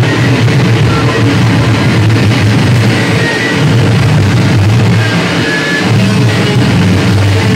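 Electric guitars played live at high volume through heavy distortion: a dense, continuous wall of sound, strongest in the deep range, with a few short high notes ringing over it.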